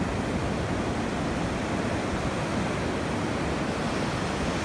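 Small waves breaking and washing up a sandy beach: a steady rush of surf.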